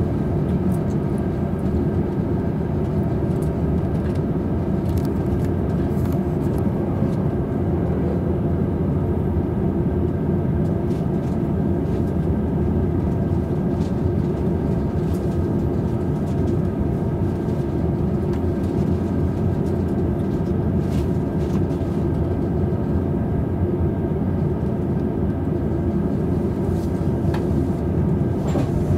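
Cabin noise inside a double-decker Green car of a JR East Tokaido Line electric train pulling into a station: a steady hum with rolling noise and a few sharp clicks from the wheels and rails.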